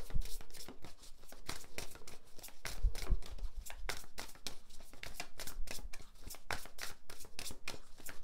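A deck of tarot cards being shuffled by hand: a steady run of quick card flicks and taps, several a second.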